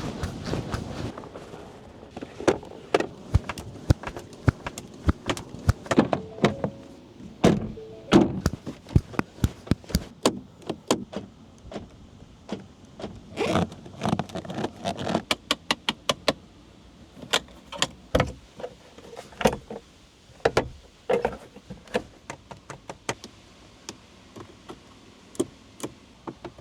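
Trim and body panels of a 2025 Ford Bronco Raptor being pressed and knocked in a squeak-and-rattle test. Irregular sharp clicks and knocks follow one another throughout, some of them loud.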